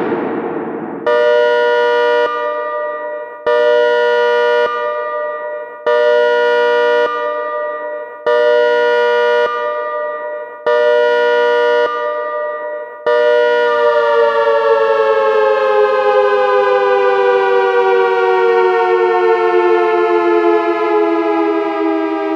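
Synthesized dual-tone ACA Hurricane 130 siren sounding its Pulse signal: a steady two-note wail that surges louder about every two and a half seconds, five times. About 13 seconds in it holds at full output and then its pitch slowly falls as the siren winds down.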